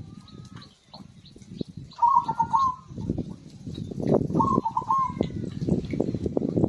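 Zebra dove (perkutut) cooing: two short, warbling phrases about two seconds apart, over a dense low crackling noise that grows louder after about three seconds, with faint chirps of small birds.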